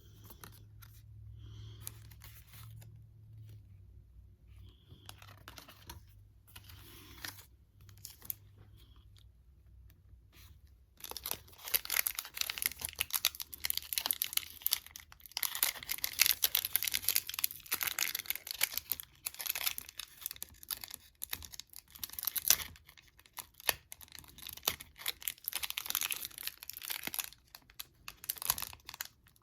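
Foil wrapper of a Pokémon card booster pack being torn open and crinkled by hand: only faint rustles at first, then dense crackling from about a third of the way in.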